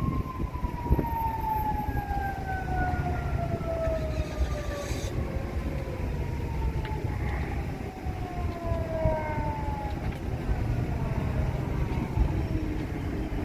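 Fire engine siren sounding long wails whose pitch slowly falls, one after another, over a steady low rumble.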